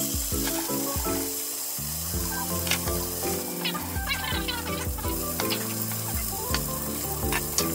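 Whole sea bream sizzling in hot olive oil in a frying pan, the hiss starting as soon as the fish go in. In the second half, a few knife cuts through cherry tomatoes click on a wooden chopping board.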